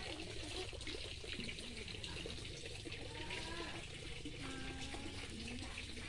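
Water running steadily and splashing onto wet, muddy ground.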